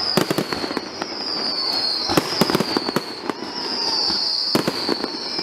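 A dense barrage of aerial fireworks bursting: rapid bangs and crackles in quick succession. Over it runs a high whistle that slides down and starts again about once a second.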